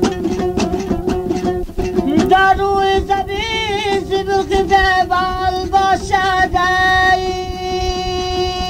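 Dambura, the Afghan long-necked lute, strummed in quick, even strokes over a steady drone note. About two seconds in, a high singing voice comes in over it, holding long wavering notes, in a Farkhar folk rubai from an old cassette recording.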